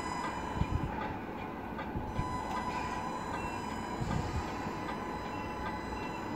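Tamiya Scania RC tractor truck driving in reverse, its electric drivetrain giving a steady mechanical whine with a few low knocks.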